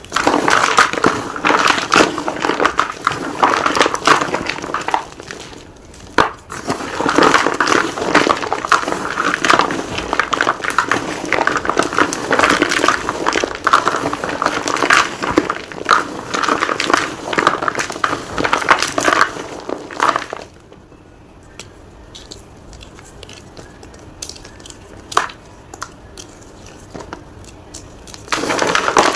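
Gym chalk being crunched and crushed in dense, crackly bursts, with a short break about six seconds in. About twenty seconds in it drops to a quiet stretch of scattered clicks, and the crunching picks up again near the end.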